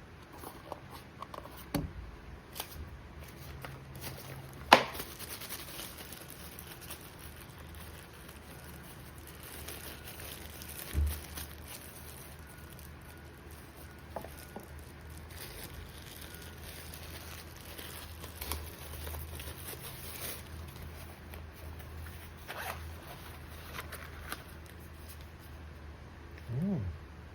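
Unboxing noises from a camera box and its packaging being handled: rustling and scattered small clicks and knocks, with one sharp click about five seconds in and a dull knock about eleven seconds in.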